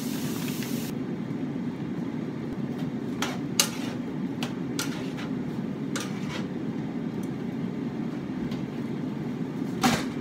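Honey chicken pieces being tipped from a bag into a nonstick frying pan and the pan being handled. There are several sharp clinks and knocks against the pan, the loudest about three and a half seconds in and another just before the end, over a steady low hum of a running air fryer.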